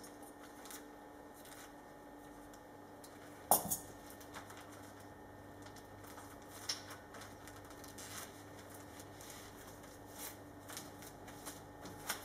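Plastic vacuum-bag film crinkling and rustling as it is handled and a metal valve fitting is worked through it, with scattered light clicks and one sharp knock about three and a half seconds in. A faint steady hum runs underneath.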